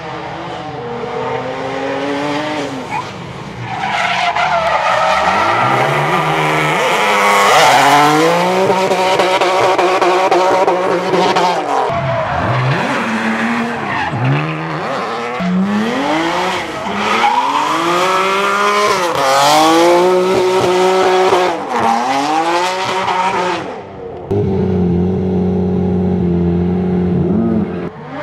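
Supercharged BMW E46 M3 drift car's engine revving hard, its pitch rising and falling again and again, with tyres squealing and skidding. About three-quarters of the way through, it gives way to a steadier, lower engine note.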